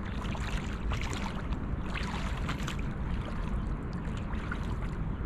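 Water sloshing and lightly splashing around a person's legs as he wades slowly through shallow estuary water, over a steady low rumble of wind on the microphone.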